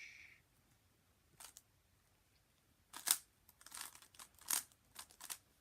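Plastic clicks and clacks of a Zcube M speed cube being turned by hand during a timed solve, coming in scattered short bursts.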